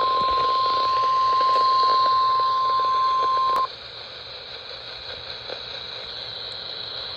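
NOAA Weather Radio 1050 Hz warning alarm tone, one steady pitch that cuts off abruptly about three and a half seconds in. After it only the quieter hiss of the open radio channel remains.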